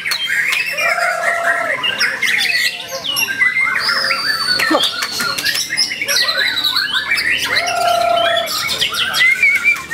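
White-rumped shama (murai batu) singing a dense, varied song of whistles, rapid trills and harsh chatters. A lower whistled phrase comes about a second in and again about eight seconds in.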